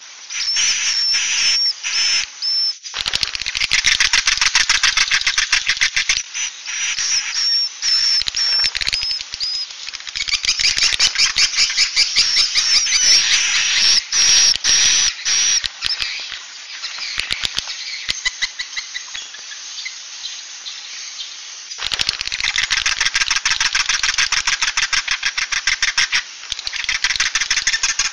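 Swiftlet calls from a 'suara inap' lure recording, the overnight-roosting call played in swiftlet houses to keep the birds there: dense, very rapid clicking chirrs with thin high twittering whistles. They thin out and drop for several seconds in the middle, then build up thick again.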